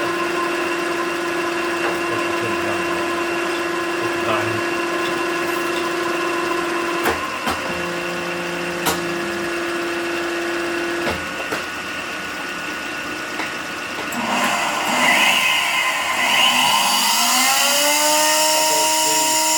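The 1980 KBC LF-1200G cylindrical grinder's motors running with a steady hum, broken by a few sharp clicks of its controls. About 14 seconds in, a motor winds up, its pitch rising for a few seconds before it settles into a steady whine at full speed.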